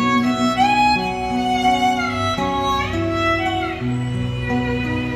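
Recorded song played back through a pair of JBL 4343 loudspeakers. This is an instrumental break between vocal lines: a violin melody with sliding notes over guitar and bass.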